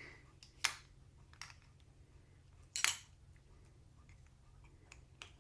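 Small plastic Lego minifigure pieces being handled and clicked together: two sharp clicks about two seconds apart, with a few fainter taps around them.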